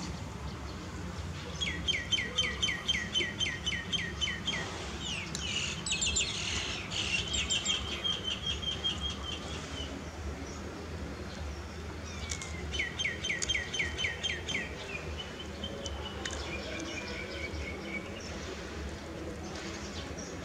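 A songbird singing: a run of quick down-slurred whistled notes, about five a second, then a fast trill. The run of down-slurred notes comes again a little past halfway.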